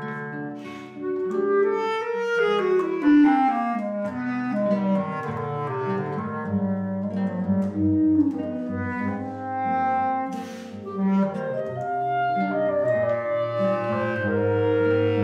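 Clarinet, bass clarinet and nylon-string classical guitar playing a piece together, with clarinet melody over the bass clarinet's low line.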